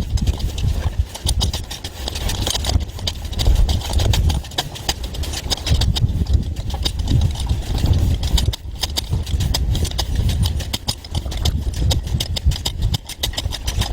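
Concrete compacting tool at work: a rapid, continuous rattling knock over a low mechanical rumble.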